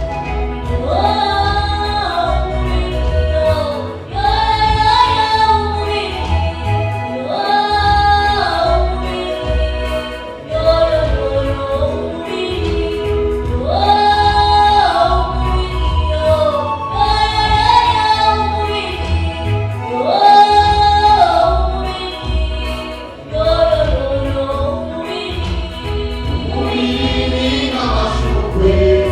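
Church choir singing a gospel song in repeating phrases of held, sliding notes over an instrumental accompaniment with a steady bass line.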